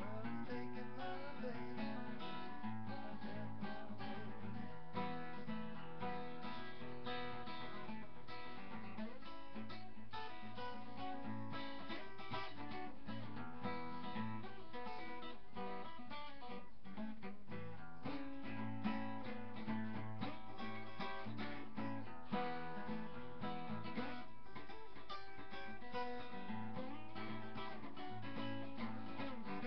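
Acoustic guitar playing an instrumental passage of a blues-rockabilly song, strummed and picked at a steady pace.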